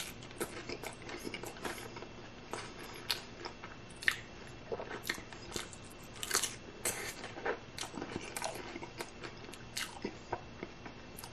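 Close-miked crunching of a hard-shell taco being bitten and chewed: many short, irregular crunches of the fried corn shell.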